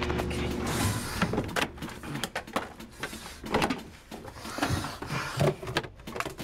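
Cabinet doors and drawers being pulled open and banged shut while someone rummages through them, a string of irregular knocks and clatters.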